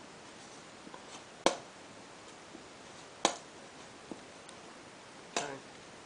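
Metal spoon clinking sharply against a ceramic plate while picking boiled snail meat out: two loud clinks about two seconds apart, with a few fainter ticks between.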